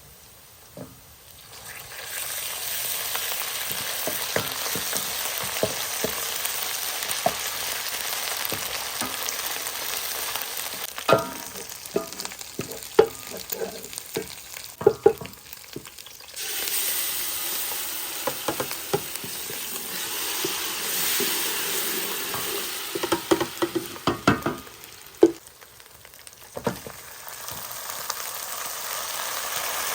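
Food sizzling and frying in hot oil in a cooking pot, starting about two seconds in, with a utensil stirring and clanking against the pot in two bursts.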